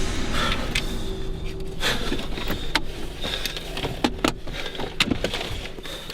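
Steady low rumble of a car, with several sharp clicks and small rattles; the rumble fades toward the end.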